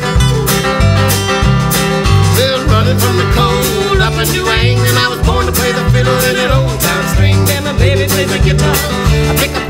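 Live acoustic folk-rock band playing an instrumental break: strummed acoustic guitar over a bass line and a steady beat, with a lead melody line wavering above it through the middle.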